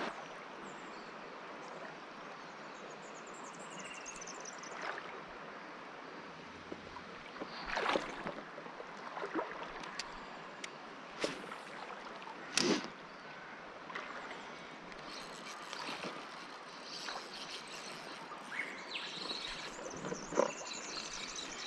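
River water lapping and splashing close by, with a handful of short, sharp splashes and knocks scattered through, the clearest about eight and about thirteen seconds in.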